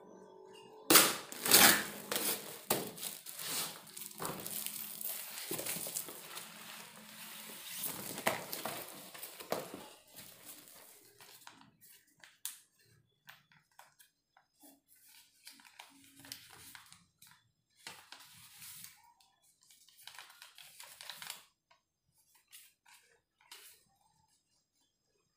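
Taped cardboard and plastic packaging being cut with scissors and torn open, with loud rips about a second in and continuous tearing and crinkling for the first ten seconds or so. After that, only scattered small clicks and paper rustling as a folded sheet is handled.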